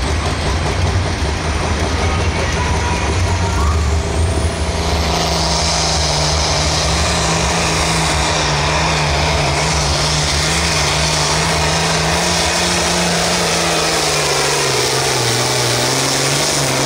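Pro field pulling tractor's turbocharged diesel engine rumbling at the line, then spooling up with a rising turbo whine about four seconds in. It then runs flat out as the tractor pulls the sled down the track.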